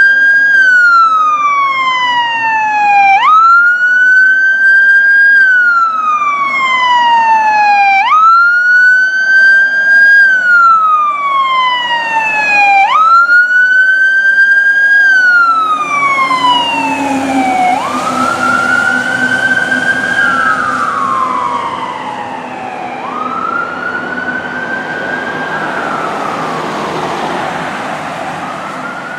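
Emergency vehicle siren sounding a wail, each cycle rising quickly and falling slowly, about every five seconds. Partway through the vehicle passes with a low rumble, and the siren then fades as it drives away.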